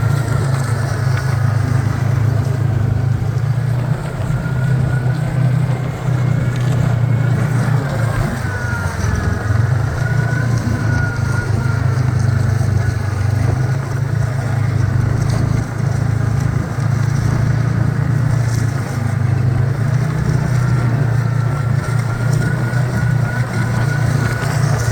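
Snowmobile engine running steadily under way: a low, even drone with a thinner whine above it that wavers slightly in pitch.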